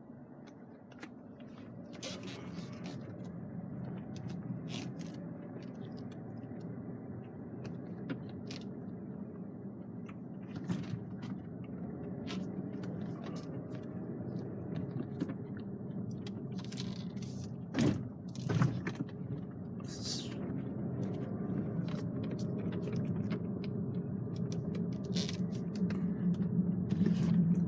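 Cadillac's engine and tyre noise heard inside the cabin while driving slowly: a steady low hum that grows gradually louder, with scattered light clicks and a couple of knocks about 18 seconds in.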